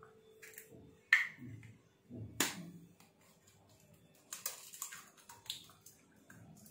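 An egg being cracked open into a bowl: two sharp knocks about a second apart, then a run of small cracking clicks as the shell is broken apart.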